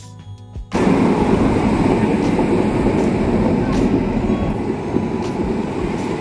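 Brief background music, cut off less than a second in by a loud, steady rushing noise without any clear tone.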